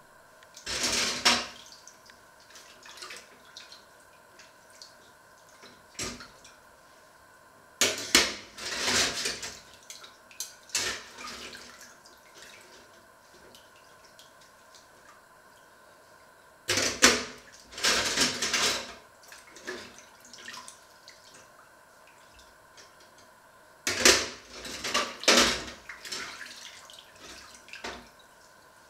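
Kitchen tap water running in short bursts of a second or two, four times, with the odd knock of dishes in a stainless steel sink as they are washed up by hand.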